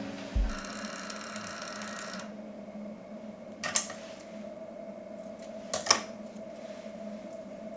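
Two sharp clicks, about two seconds apart, over a steady low hum, with a dull thump and a brief held tone near the start.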